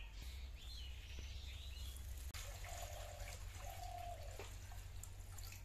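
Birds chirping, then water poured from a metal pot into a wok, splashing for about two seconds.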